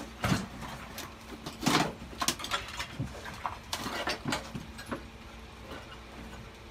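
Search-and-rescue dog at work, making a series of short, irregular sounds, with several sharper ones in the first half that thin out toward the end.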